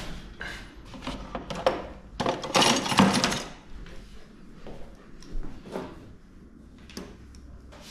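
Handling noises of a groomer picking up tools at a grooming table: knocks and clicks, a loud scuffling rush about two to three seconds in, then a few scattered sharp clicks near the end.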